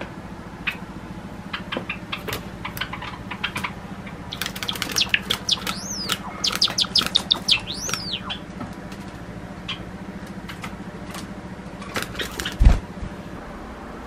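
Male Java sparrow singing: scattered clicking notes build into a fast run of high, ringing notes that rise and fall, then break back into clicks. The owner hears this song as a grumbling complaint rather than a happy one. A single thump near the end is the loudest sound.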